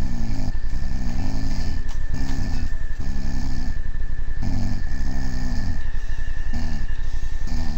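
Loud snoring in short, rough pitched bursts of about half a second to a second, often coming in pairs, over a steady low rumble and a thin high whine.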